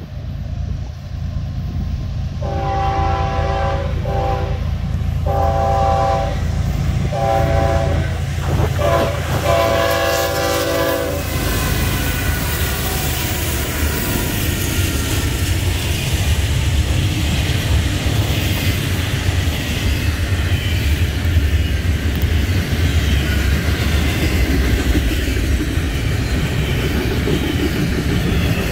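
A Union Pacific diesel freight train approaching and sounding its air horn, a chord of several notes, in a run of blasts over about nine seconds. Then the locomotives and a long train of double-stack container cars rumble and clatter past on the rails.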